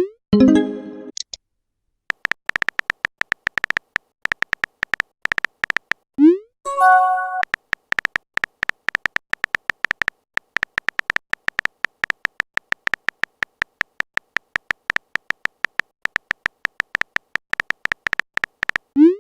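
Smartphone keyboard clicks in quick, irregular runs, broken twice by a rising whoosh of a message being sent and then a short chime of a message alert: once at the start and once about six seconds in.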